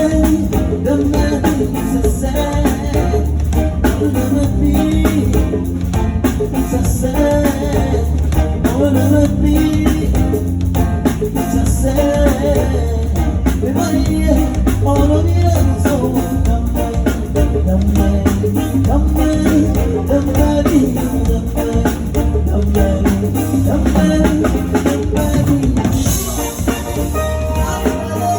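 Live band playing during a sound check: a drum kit and a deep bass line keep a steady beat, with other instruments over them.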